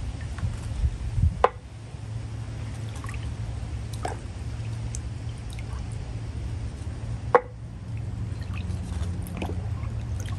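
Sockets being fished out of a rust-remover bath and rinsed in water: liquid dripping and sloshing, with a few light ticks and two sharp metal knocks, about a second and a half in and again near seven seconds, over a steady low hum.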